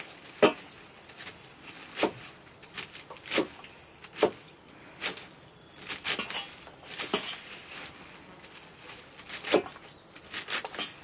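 Fresh leafy greens being sliced by hand against a curved sickle blade: crisp, irregular cutting strokes, roughly one every half second to a second.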